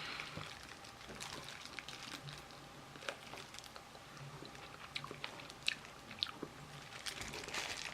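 Close-up chewing and biting of Korean fried chicken, with scattered small crunches and clicks.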